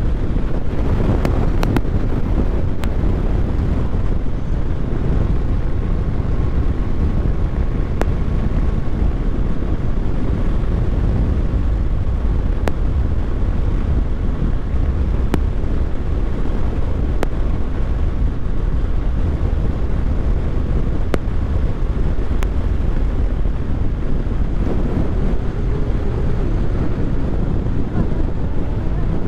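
Wind rushing over the microphone of a moving vehicle at steady road speed, with engine and road rumble underneath. Faint ticks come through now and then.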